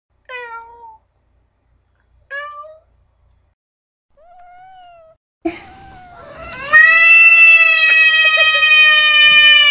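Cat meowing three times, short meows that fall in pitch, a second or two apart. After a click, a loud, long, high-pitched wail starts about seven seconds in and holds steady.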